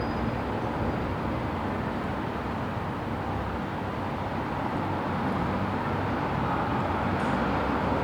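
Busy city street ambience: a steady wash of traffic noise, growing slightly louder in the second half.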